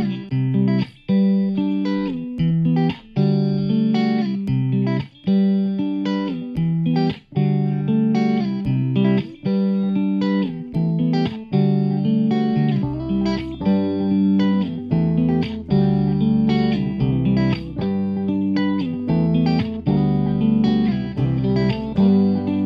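Instrumental guitar music with plucked notes in a steady rhythm; a low bass line comes in about halfway through.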